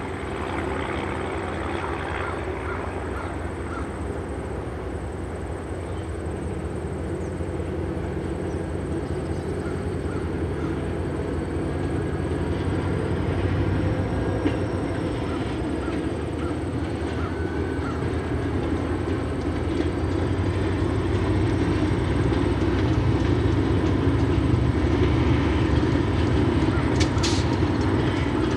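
Diesel freight train led by an EMD SD40-2 approaching, its locomotive engines running steadily and growing gradually louder as it nears.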